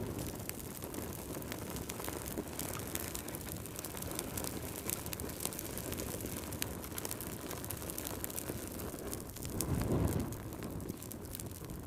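Wood fire burning, with a steady low rumble of flames and frequent sharp crackles and pops. The low rumble swells briefly near the end.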